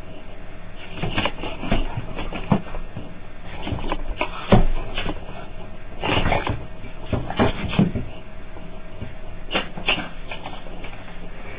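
Beagle puppy moving about on a tiled floor: irregular short clicks, knocks and shuffles, the loudest about four and a half seconds in, as it goes after food held above it.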